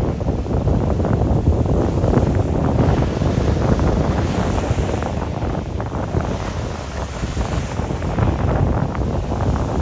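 Wind buffeting the microphone: a loud, low, uneven rumble that gusts up and down.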